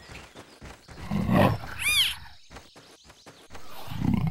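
Cartoon big-cat calls for a clouded leopard and its cub: a low growling call about a second in, then a short high cry that rises and falls in pitch. A steady low rumble starts near the end.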